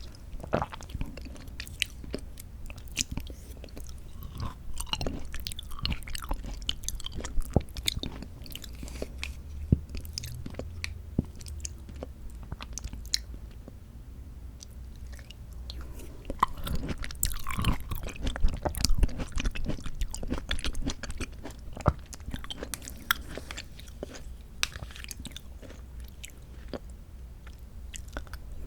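Close-miked chewing of canned mandarin orange segments from a fruit cup: wet mouth sounds with many sharp, irregular clicks.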